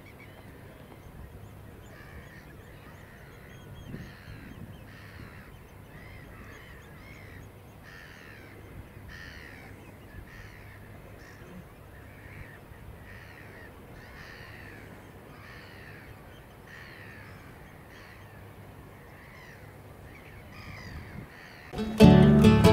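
Gulls calling over and over: a long series of short, falling cries. Guitar music comes in suddenly near the end and is the loudest sound.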